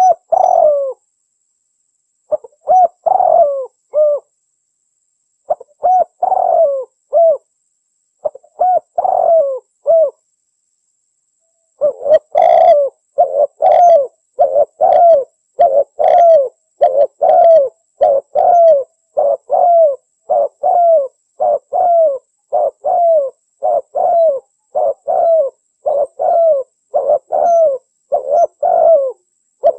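Spotted dove (tekukur) cooing on a recorded lure call: a few short phrases separated by pauses, then about twelve seconds in a long unbroken run of repeated coos, roughly two a second.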